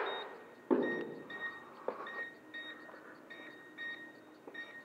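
Low-battery warning beeps from a toy RC boat's radio controller: short high beeps repeating quickly and unevenly, several a second, with a few faint clicks between them.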